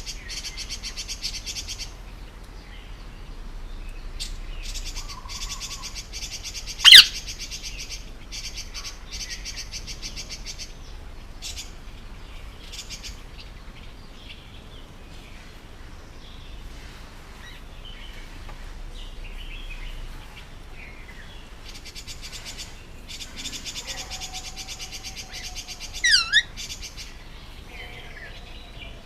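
Indian ringneck parakeet chattering in stretches of rapid, buzzy trilling, with a loud, sharp call about seven seconds in and another loud call, made of several quick pitch glides, near the end.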